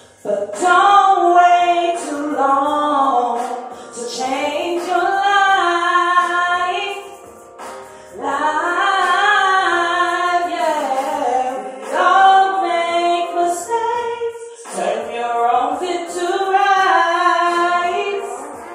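A woman singing a slow melody in long, held phrases that break every few seconds, with no drum beat underneath.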